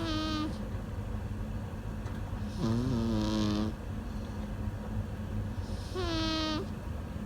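A sleeping cat snoring: three pitched, wheezy snores about three seconds apart, over a steady low hum.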